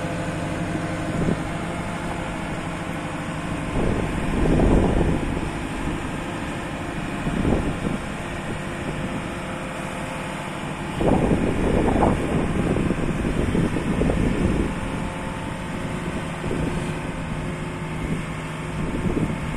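JCB 540-170 telehandler's 110 hp diesel engine running steadily while the hydraulic boom is raised. The noise swells louder twice, about four and eleven seconds in.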